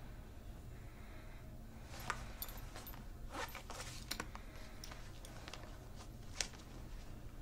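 Quiet room tone with a steady low hum, broken by a few faint clicks and rustles, the sharpest about six seconds in.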